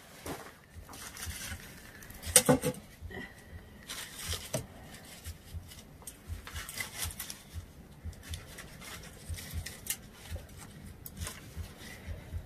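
Split firewood being handled and set on a smouldering fire in a smokehouse: scattered light clicks and crackles, with a brief loud clatter about two and a half seconds in.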